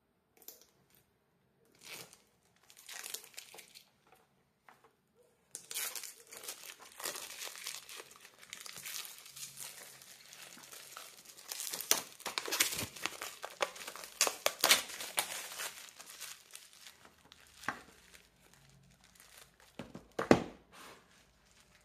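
Clear plastic shrink wrap being torn and peeled off a small cardboard box. Crinkling and crackling come in short bits at first, then run thick through the middle, with one sharp crackle near the end.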